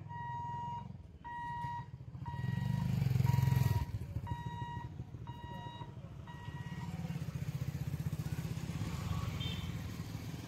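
Level-crossing boom barrier's warning beeper sounding about once a second, one steady beep each time, while the barrier lifts; it stops about seven seconds in. Motorcycle engines run underneath, loudest about three seconds in, and again as motorcycles ride across the tracks in the second half.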